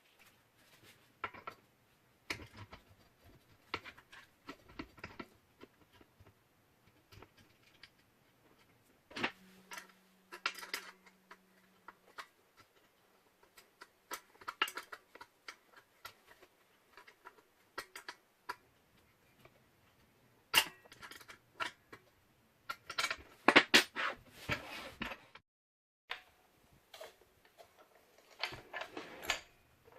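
Hard parts of an angle grinder stand being handled, with scattered clicks, knocks and rattles. The loudest cluster of knocks and rattles comes about two-thirds of the way through, and there is a brief low hum near the middle.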